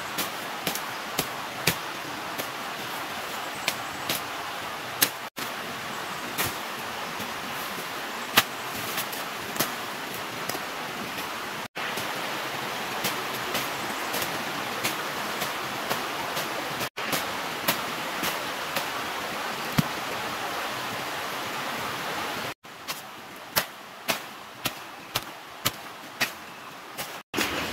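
A bush knife chopping into wood and brush: short sharp strikes, irregular, about one or two a second in spells, over a steady hiss.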